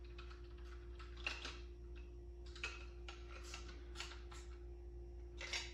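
Light clicks and ticks from a hex-bit driver turning a pistol-grip screw into a rifle chassis, with a few louder clicks spaced a second or more apart.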